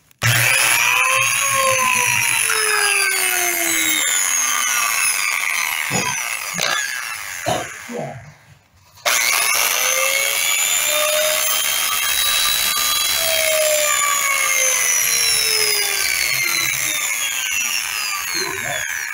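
Bosch corded impact drill running free with an empty chuck, in two long runs with a short break about eight seconds in and a few brief blips just before it; during each run the motor's pitch rises and then slowly falls. The drill's internal cooling fan is broken and does not turn, which the seller says needs replacing.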